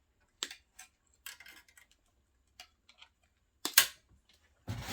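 Small metal parts of a vintage office pager clicking and clinking as they are handled and sorted, a scatter of light taps with a louder clack just before the end, then a burst of rattling clatter.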